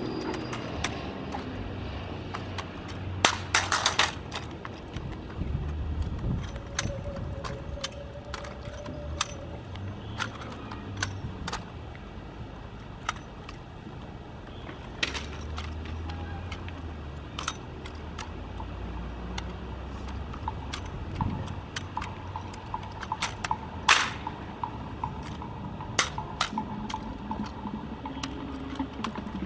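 Armed exhibition drill with a drill rifle: sharp clacks at uneven intervals as the rifle is slapped, spun and caught, a few of them louder, over a low steady hum.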